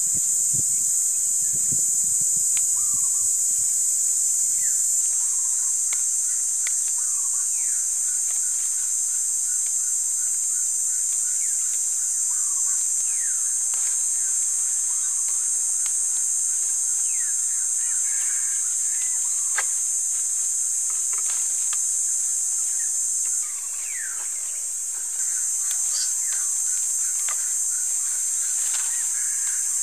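A steady, high-pitched drone of insects calling, with short bird chirps scattered through it.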